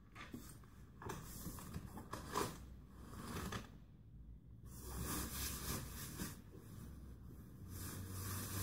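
Faint, scattered rustles, scrapes and clicks of a Camarelo Baleo Shine baby stroller being handled: its fabric canopy and carrycot rubbing and its frame shifting.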